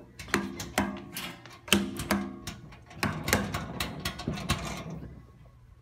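Stainless-steel filtering equipment being handled by hand: a run of sharp metal clanks and clicks, some with a short ring, that die away near the end.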